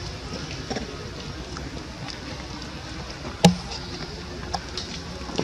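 Steady outdoor background hiss with small scattered ticks, and one sharp tap with a dull thud about three and a half seconds in.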